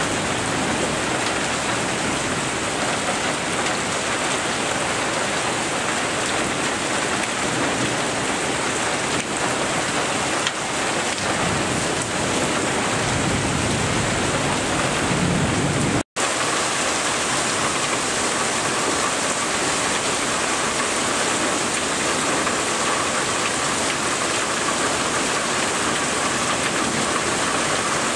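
Heavy rain pouring down steadily in a thunderstorm, with low rumbles of thunder in the first half. The sound drops out for an instant a little past halfway, then the downpour carries on.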